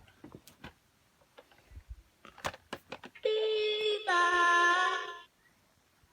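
Plastic toy being handled with light clicks and knocks, then an electronic toy plays two held synthetic notes of about a second each, the second lower.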